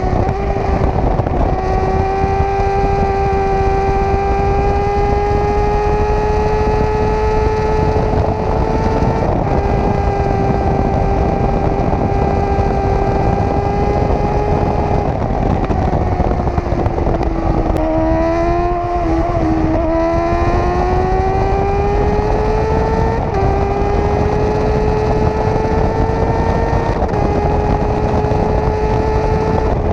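Sport motorcycle engine running hard at high revs under a heavy rush of wind, its pitch held high and creeping slowly upward. About eighteen seconds in the pitch drops and wavers briefly, then climbs again over the next few seconds.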